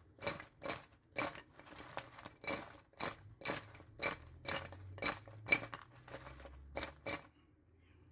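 Wings being tossed in sauce in a bowl: a steady run of short clinks and knocks about two a second, each with a faint ring, that stops about seven seconds in.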